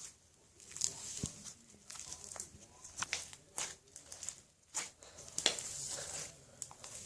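Slime with beads in it being squeezed and worked by hand, giving irregular crackling clicks and wet squishing.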